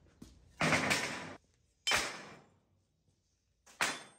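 Cut lengths of 2-inch square steel tubing set down on a steel-topped welding table: three ringing metal clanks, the first about half a second in and the last near the end.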